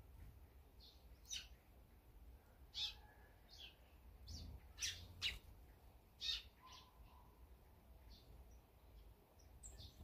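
Small songbirds chirping around a seed feeder: about ten short, high chirps scattered through, the loudest in the middle, over a faint low background rumble.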